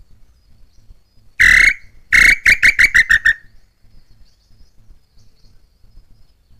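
Loud bird call close to the microphone: one long note, then a quick run of about eight short notes that fall slightly in pitch. Faint insects trill steadily behind it.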